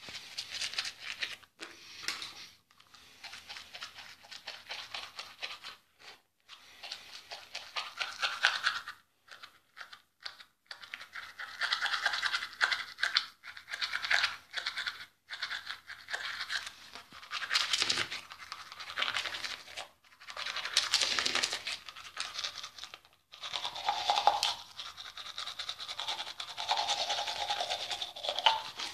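Manual toothbrush scrubbing teeth through foamy toothpaste: rapid back-and-forth bristle strokes in bursts of a few seconds, broken by short pauses.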